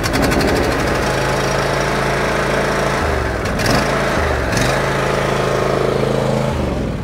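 Lawnmower's small engine running just after being started, with the choke on. The note holds steady but dips and recovers twice, around three and four and a half seconds in.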